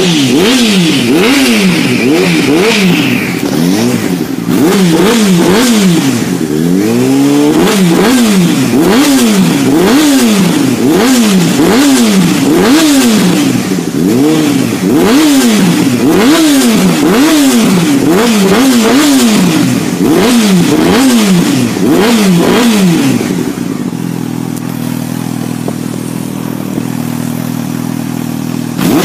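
Sport motorcycle engine revved again and again with a twist of the throttle, the pitch rising and falling about once a second. About three-quarters of the way through it drops to a steady idle.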